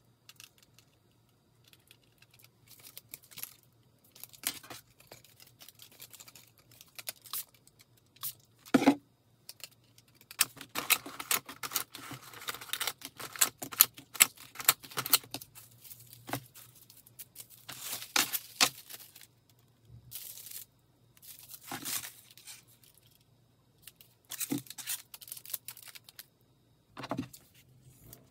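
Irregular rustling and crinkling of bouquet-wrapping paper and packaging being handled, with scattered knocks and taps as artificial roses and plush dolls are picked up and set down on a table. A faint steady low hum runs underneath.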